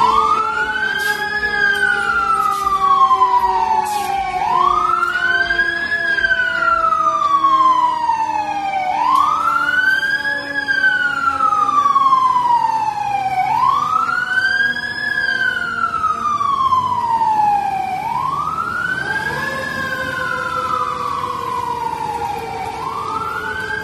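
Fire engine siren on a wail, cycling about every four and a half seconds, each cycle climbing quickly and sliding down more slowly. Beneath it runs a second, steadier siren tone that slowly drops in pitch and climbs back up about three-quarters of the way through. A few short, sharp sounds come in the first few seconds.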